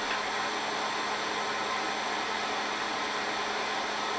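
Hovering quadcopter's electric motors and propellers running steadily: an even whirring hiss with a constant low hum.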